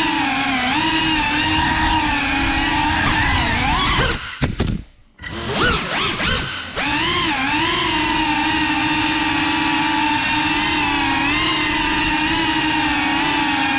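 Cinewhoop quadcopter's brushless motors and ducted propellers whining steadily, the pitch wavering as the throttle changes. The sound cuts out about four seconds in, comes back in a few short stutters, and resumes fully near seven seconds.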